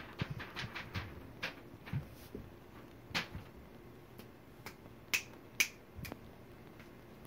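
Fingers snapping repeatedly to attract a cat: a quick run of snaps in the first second, then single sharp snaps spaced out, the loudest two about five seconds in.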